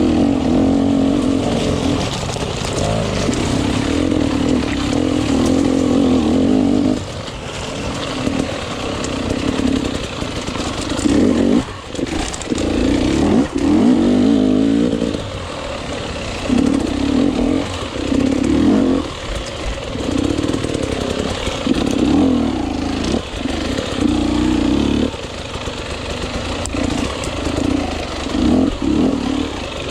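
Enduro motorcycle engine being ridden hard, opening up and easing off the throttle again and again, with short dips in between.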